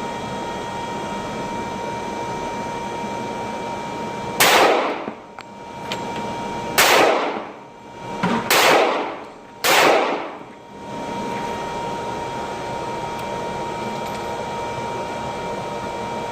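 Four gunshots at uneven intervals, the first about four seconds in and the last about ten seconds in, each with an echoing tail. A steady hiss with a faint constant hum runs underneath.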